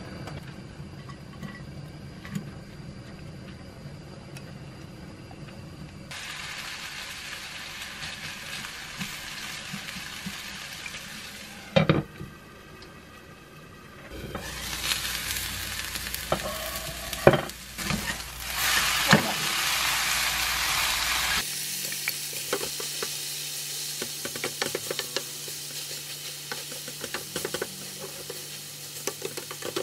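Cabbage okonomiyaki batter sizzling as it fries in an olive-oiled frying pan, with a few sharp knocks against the pan in the middle. Near the end the pancake, turned to brown its second side, sizzles under the scraping and tapping of a spatula.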